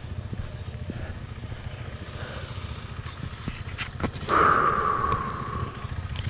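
Royal Enfield Himalayan's 411 cc single-cylinder engine idling steadily. A louder rushing noise rises about four seconds in and fades away over a second or so.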